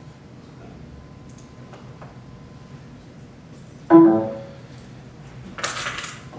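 A single sudden ringing note with overtones, about four seconds in, dying away within about half a second, then a brief burst of rustling noise near the end, over a low steady room hum.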